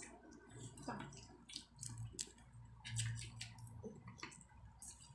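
A person eating with their hands: soft wet chewing and mouth noises, with scattered small clicks.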